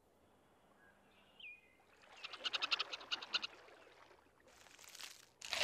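Faint nature sound effects: a short falling chirp, then a rapid chattering animal call of quick, even pulses, about seven a second, and a brief rustle near the end.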